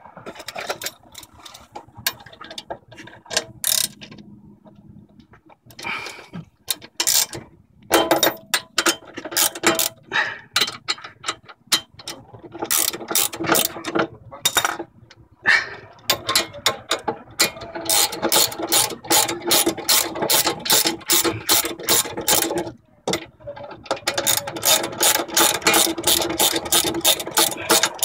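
Hand ratchet wrench clicking as it is worked back and forth on a brake caliper bolt. The clicks come in short runs at first, then steadily at a few clicks a second for much of the second half, with one short pause.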